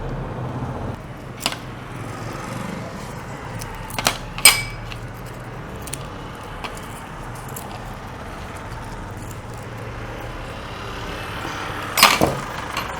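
A few sharp clinks and knocks from kitchen utensils and a vessel as fresh herb leaves are added to a pot of water. The loudest comes about four and a half seconds in with a brief ring, and a cluster comes near the end, over a steady low background hum.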